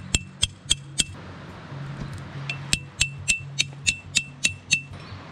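A metal tent peg being hammered in with a camping peg hammer: sharp, ringing metallic clinks, four in quick succession, then after a pause of about a second and a half a steady run of about nine strikes, roughly three a second.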